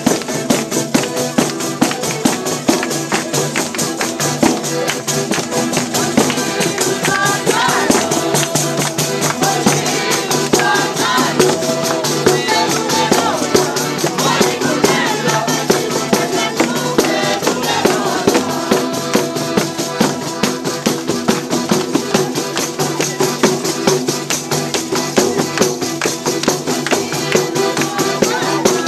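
Southern Italian folk song played live: a tambourine keeps a fast, even beat over steady held notes, with voices singing through the middle part.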